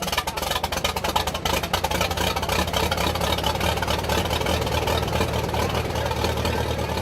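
McCormick-Deering 10-20 tractor's four-cylinder engine running with a steady, rapid exhaust beat.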